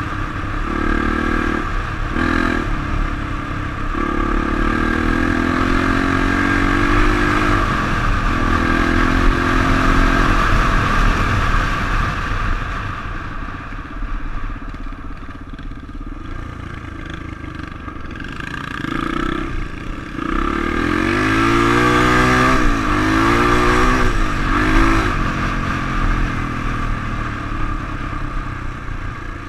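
Honda XR 350's single-cylinder four-stroke engine running under way, its pitch rising and falling as the throttle is opened and closed, with the sharpest swings about two-thirds through.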